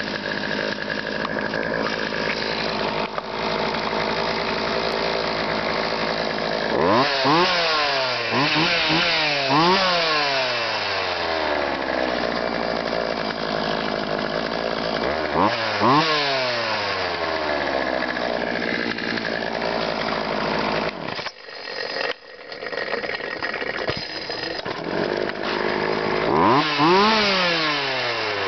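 Poulan Wild Thing two-stroke chainsaw running at idle, blipped up to high revs several times: a quick run of revs about a quarter of the way in, a couple more near the middle, and one near the end, each falling back to idle. About three-quarters of the way through, the engine sound drops away briefly before picking back up.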